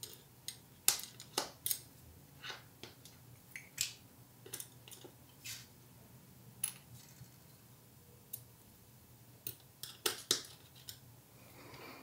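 Small sharp metallic clicks of balls being pushed into the grooves of a small ball bearing's races with a pick and the bearing being handled, about fifteen clicks at irregular intervals over a faint low hum.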